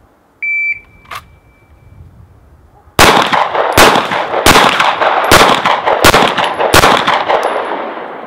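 A short high beep, then about two and a half seconds later six pistol shots, each followed by an echo, fired one-handed with the support hand about three-quarters of a second apart. This is the 10-yard support-hand string of the Bianchi Cup practical event: three shots on each of two targets.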